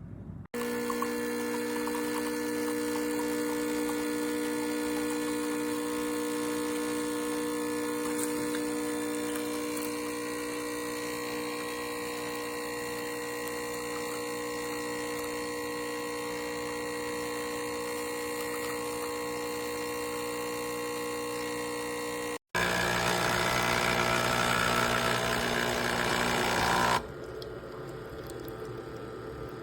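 Nespresso Pixie espresso machine's vibratory pump buzzing steadily as it pushes water through a capsule. After a brief break about 22 seconds in, it runs louder and rougher for about four seconds, then stops. It keeps running on the short espresso setting, which the owner takes for a fault.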